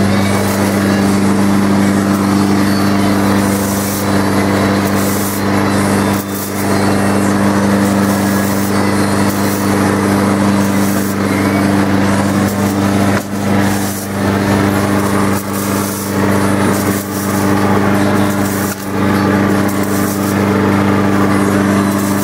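Lawn mower engine running at a steady, constant speed, with scattered knocks from handling nearby.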